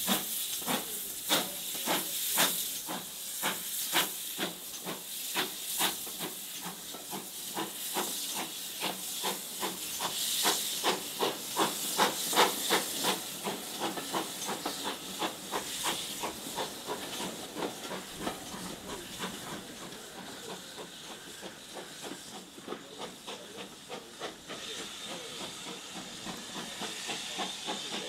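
Steam locomotive pulling away with its train, the exhaust beats quickening and then fading as it draws away, over a steady hiss of steam from its open cylinder drain cocks.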